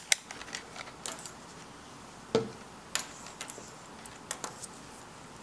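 Objects handled on a tabletop: scattered light clicks and taps, with one duller knock a little over two seconds in.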